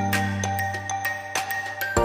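Background music: a light tune of struck, bell-like notes over a held bass note.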